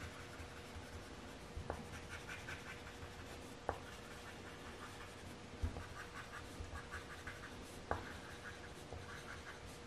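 Gray coloured pencil shading on paper: faint, repeated scratchy strokes, with a few light ticks.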